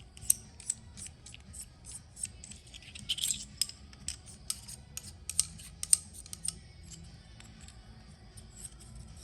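Threaded metal extension-leg sections of a camping gas stove being screwed together and handled: a string of light, irregular metallic clicks, ticks and scrapes.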